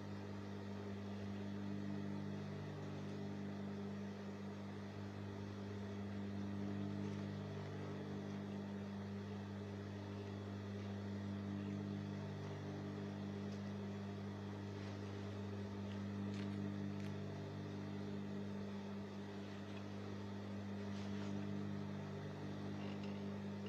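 Steady low electric hum with several evenly spaced tones, swelling and easing slowly every few seconds, with a few faint ticks.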